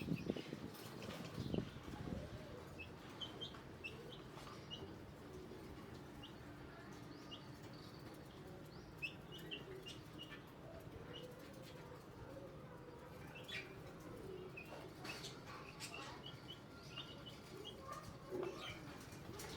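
Budgerigar chicks about eight days old peeping: many short, high chirps scattered throughout, with some rustling in the first couple of seconds.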